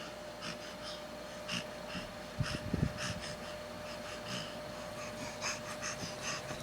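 A baby's soft breathing with short breath sounds every half second or so, and a few faint knocks a little over two seconds in.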